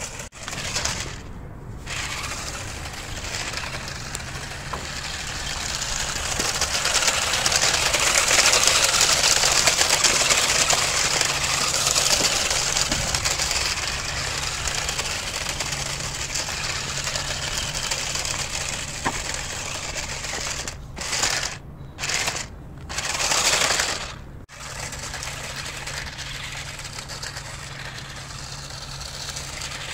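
Battery-powered RC rock crawler driving over gritty asphalt: electric motor and gearbox whirring with the tyres grinding on the grit. It is loudest from about eight to twelve seconds in, and drops out briefly three times about two-thirds of the way through.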